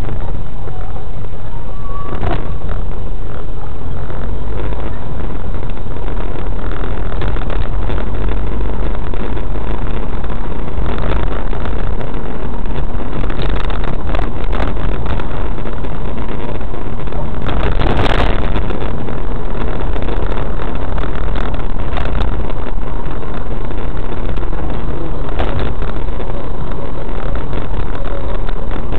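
Car driving, its engine and tyre noise heard inside the cabin as a loud, steady low rumble, with scattered knocks and a louder burst of noise about 18 seconds in.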